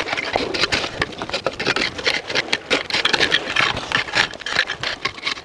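Small metal-tined clam rake scraping through wet beach gravel and stones in quick, repeated strokes while digging for steamer clams, with stones clicking and rattling against the tines.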